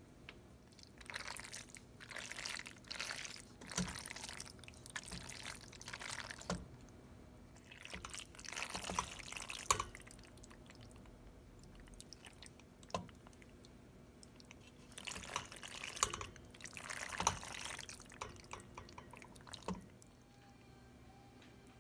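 Wooden spoon stirring thick penne pasta with meat sauce and shredded mozzarella in a stainless steel pot: wet squishing and scraping in three bouts, with a few light knocks.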